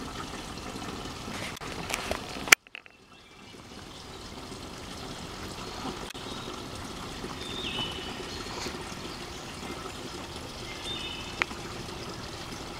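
Slow-flowing spring water trickling from a pipe into a plastic five-gallon water jug, a steady running-water sound. About two and a half seconds in there is a sharp click, then the sound cuts out briefly and fades back in.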